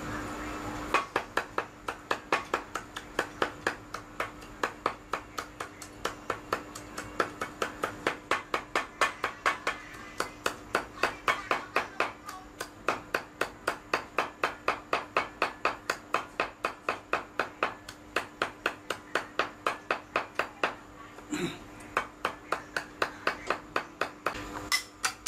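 Cleaver chopping soaked dried red chillies on a wooden chopping block: rapid, even chops, about four a second, with a short pause near the end.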